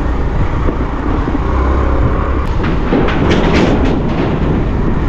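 Motor scooter riding along with a steady road rumble. From about halfway, a quick run of clanks as the wheels cross the joints of a steel Bailey bridge deck.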